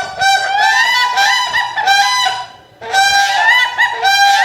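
Crane calling: a run of repeated loud calls in two bouts, with a short break about two and a half seconds in.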